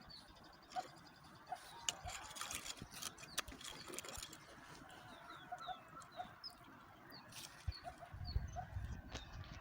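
Faint background bird calls: repeated short, high, falling chirps with lower short calls in between, and a few sharp clicks and knocks.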